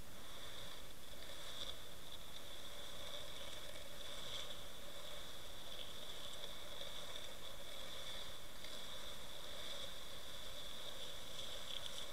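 Steady underwater noise picked up by a camera resting on a river bed: a muffled hiss of current with a constant high-pitched whine running through it, and a few faint ticks.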